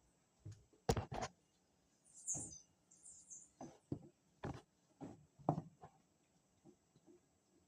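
Scattered soft knocks and taps, about a dozen, with two short high hissing rustles about two and three seconds in.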